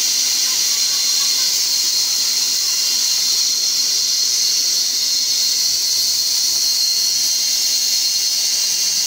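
Large vertical band saw running, its blade and wheels giving a steady high hiss that holds even throughout.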